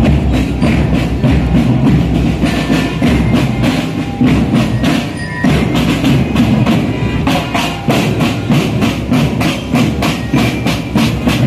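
Military marching drum corps playing marching snare drums in a steady, even drum beat.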